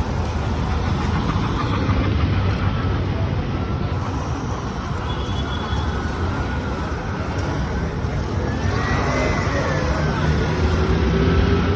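Road traffic noise: motor vehicles running steadily, with a faint mix of voices.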